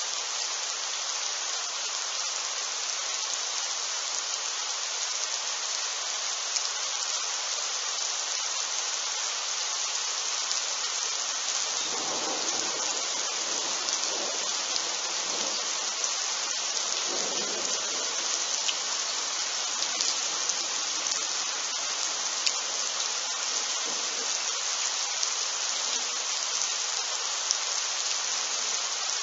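Steady rain hissing down, with scattered drop ticks close by. About twelve seconds in, thunder from a strike about 4 km away rolls in as a deep rumble that swells twice and fades over some seven seconds.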